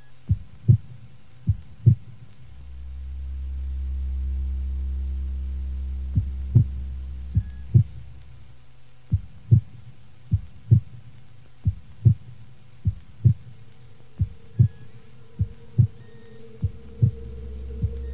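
Mixtape intro: low double thumps like a heartbeat, the pairs repeating about every second and a bit, over a deep hum that swells in and drops out. A higher steady tone joins near the end.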